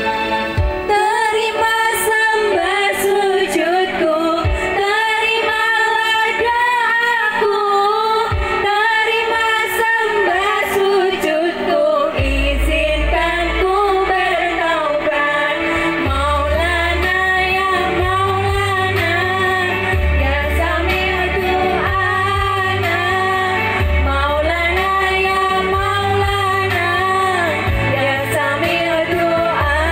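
Women singing a song together into microphones over amplified backing music through a PA. A low bass comes in about twelve seconds in and pulses steadily through the second half.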